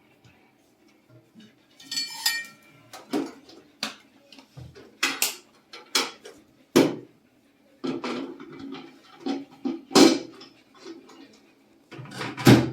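Hard objects knocking and clinking as they are handled, in an irregular run of sharp taps, with a brief squeak about two seconds in.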